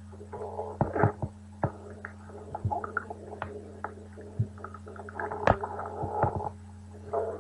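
A person's stomach growling and gurgling in several irregular bursts, with a few sharp clicks among them, over a steady low hum.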